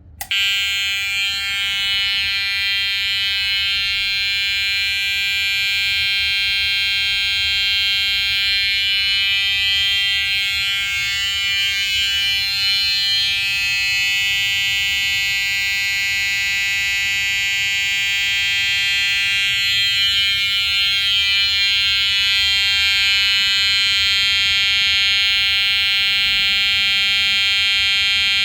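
Edwards 882-2B electronic fire alarm horn sounding continuously: one steady tone rich in overtones that starts abruptly at the very beginning and holds without a break.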